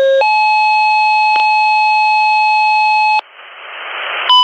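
Fire dispatch paging tones over a radio: the tail of a lower tone, then a higher steady tone held for about three seconds. It cuts off into open-radio static that grows louder, with a short beep near the end.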